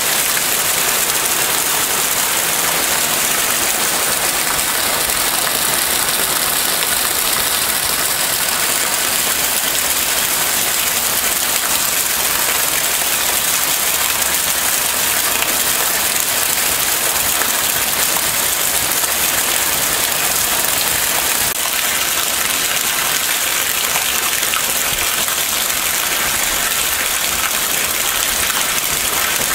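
Heavy rain pouring steadily on plants and pavement, a dense even hiss with no let-up.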